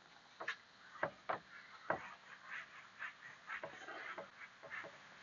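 Cloth or eraser wiping marker off a whiteboard, with faint, short squeaks and rubbing strokes at irregular intervals.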